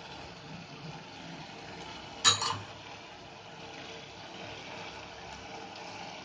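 Steady low hiss of masala cooking in an aluminium pressure-cooker pot on the stove, with one sharp clink of kitchenware against the pot about two seconds in.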